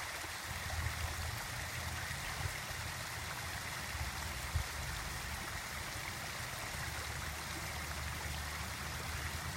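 Water fountain splashing and trickling steadily, over a low rumble, with a few small knocks, the sharpest about four and a half seconds in.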